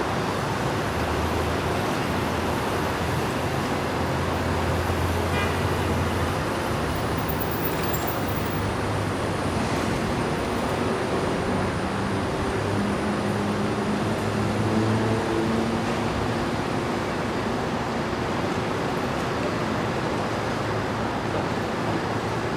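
Busy city street traffic: a steady wash of engines and tyres, with the low hum of passing vehicles' engines swelling and fading now and then.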